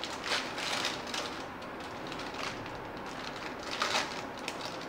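Plastic biscuit wrapper crinkling and rustling as the packet is torn open and the biscuits are pulled out, with a few sharper crackles.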